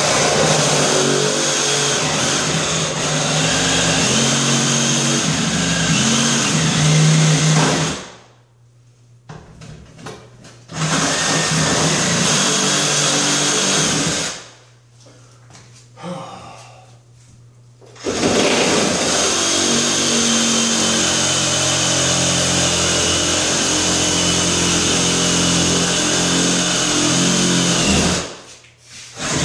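Reciprocating saw cutting into a fiberglass bathtub surround, running in three long bursts with short pauses between, its motor pitch shifting as the load changes.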